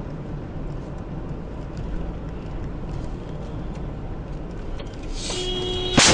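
Engine and road noise inside a moving car's cabin. A steady tone sounds for under a second, then about six seconds in one loud, sharp crash as the car collides hard enough to shatter its windshield.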